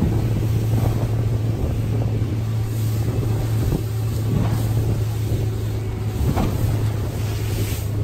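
Motorboat running at speed over the sea: a steady low engine drone over the rush of water and wind. A few sharp knocks come as the hull slaps through the chop.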